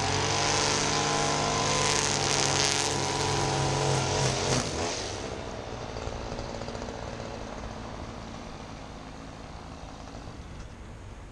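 Honda 216D self-propelled lawn mower's four-stroke engine running steadily, then cutting out about four and a half seconds in; a soft hiss of wind and surf remains.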